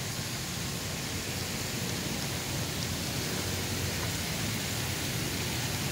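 Park fountain jetting up and falling back into a pond: a steady splashing hiss that grows slightly louder.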